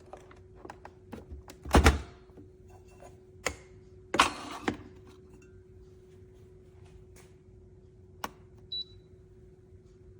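Clicks and knocks of things being handled. There is a loud thunk about two seconds in and a heavier, rattling knock about four seconds in, over a steady low hum, with a brief high tone near the end.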